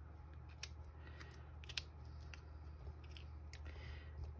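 Small cardstock triangles being picked up and set down on a card by hand: light paper handling with a few short sharp clicks, the loudest a little under two seconds in, over a faint steady low hum.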